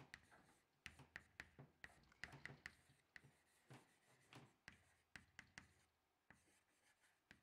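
Faint chalk writing on a blackboard: a string of irregular light taps and short scratches, several a second, as letters are written.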